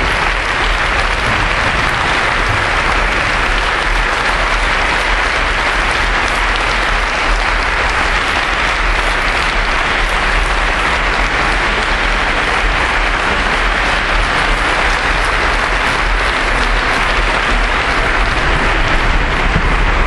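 Large theatre audience applauding steadily during the curtain call.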